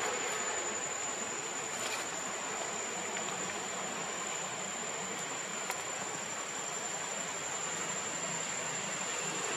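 Steady outdoor background noise: an even hiss with a thin, unbroken high-pitched whine through it, and a couple of faint clicks.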